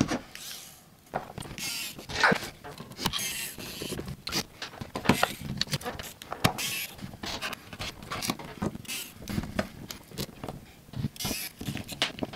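Sped-up handling noise of a laptop being reassembled: a dense run of quick clicks, taps and scrapes from screws, a screwdriver and the plastic case parts.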